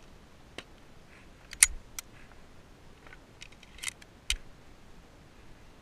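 A handful of short, sharp clicks and knocks spread over a few seconds, the loudest about one and a half seconds in.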